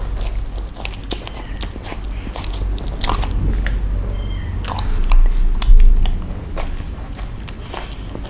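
Alaskan Malamute biting and chewing a soft bread bun close to a microphone: wet chewing with many short crackles from the crust. A louder low thump comes about five to six seconds in.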